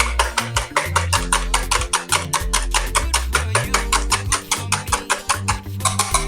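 Background music with a fast, steady percussion beat over a moving bass line.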